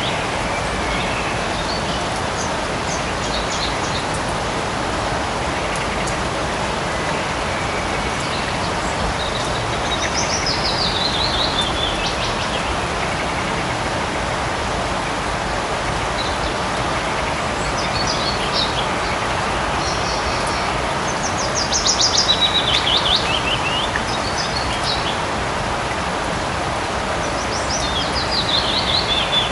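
Light rain falling steadily in a forest, an even hiss, with birds calling over it. Several times, about ten seconds in, around twenty seconds in and again near the end, a bird gives a rapid trill that falls in pitch.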